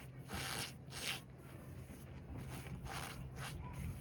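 Reformed cornstarch slab topped with loose cornstarch being pressed, giving about five separate squeaky crunches at irregular intervals.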